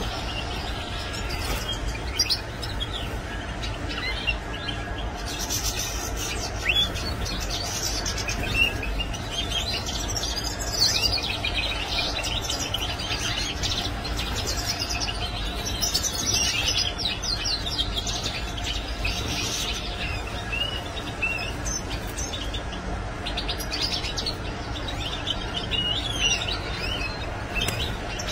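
European goldfinches chirping and twittering in irregular bursts of short, high calls, over a steady low background hum.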